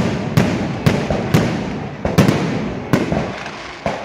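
Aerial fireworks going off in a rapid series of sharp bangs, about seven in four seconds, each followed by a short rumbling decay.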